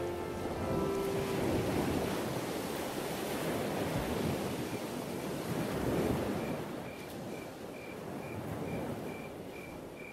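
Rushing surf-like noise that swells and eases slowly, as the last held note of a song dies away in the first second or so; in the second half a faint high tone pulses about twice a second.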